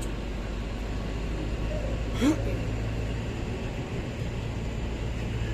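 Steady low rumble of a passenger train at a station platform, with faint voices in the background. A brief sharp sound rises in pitch about two seconds in.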